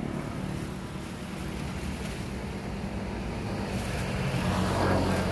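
A motor vehicle engine running steadily, a low hum that grows louder near the end, with wind noise on the microphone.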